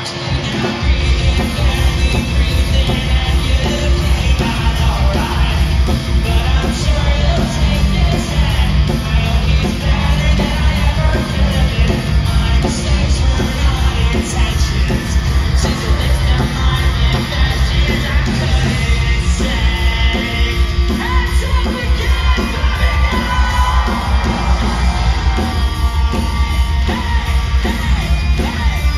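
Live rock band playing loud: electric guitars, bass and drums with a singer singing and shouting into the microphone. The full band comes in about a second in.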